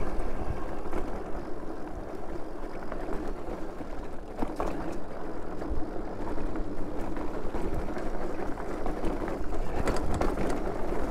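Super73 electric bike riding over a rough dirt trail: a steady rumble of tyres on dirt and wind on the microphone, with a few short rattles and knocks from bumps, about four seconds in and again near the end.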